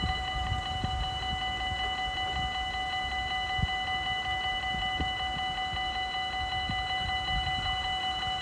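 Dutch level crossing warning bell ringing steadily, a high ringing tone with several overtones, signalling that a train is approaching.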